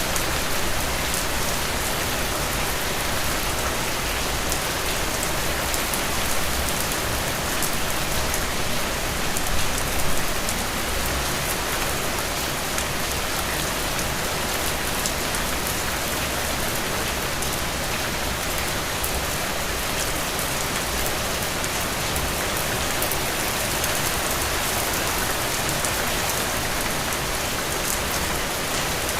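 Steady rain falling, an even hiss with fine patter of drops hitting a surface, with a slight swell about ten seconds in.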